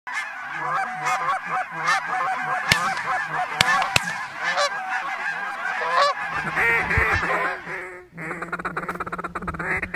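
A large flock of geese calling, many honks overlapping, with a few sharp cracks in the first half. About 8 seconds in the sound cuts to ducks quacking in rapid runs.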